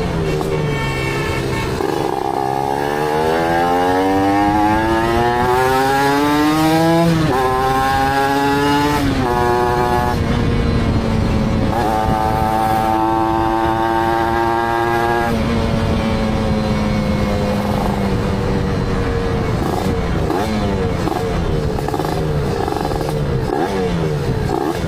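Kawasaki Ninja motorcycle engine on a rich 'wet' carburettor setting, revving with a throaty note. The revs climb slowly for about five seconds and drop sharply, climb and drop again, hold high for a few seconds, then fall back to a lumpy idle with short throttle blips near the end.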